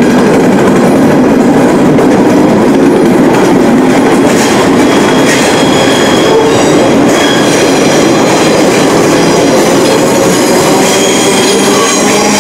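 ScotRail electric multiple unit moving past close by along the platform, a loud steady rumble of wheels and running gear. High-pitched squealing comes in from about four and a half seconds in.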